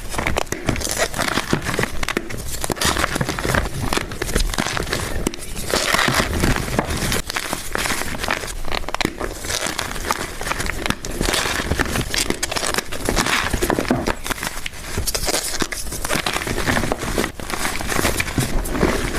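Blocks of gym chalk being crushed and crumbled, a dense, continuous crunching and crackling full of small snaps.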